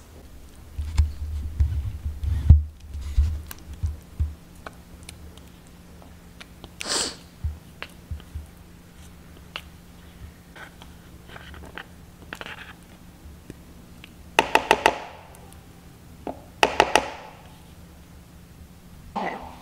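A spatula scraping sauce out of a mixing bowl into another bowl. There are low thuds in the first few seconds as the bowls are handled, and two short runs of quick ringing taps of the spatula against the bowl rim late on.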